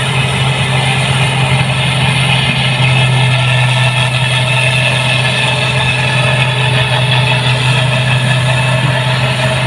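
New Holland 8060 rice combine harvester running steadily, a loud constant engine hum with no change in pitch.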